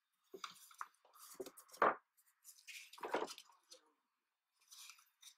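Gloved hands handling a black transducer cable and plastic mounting parts: irregular rustling and scraping, with two louder scrapes about two and three seconds in.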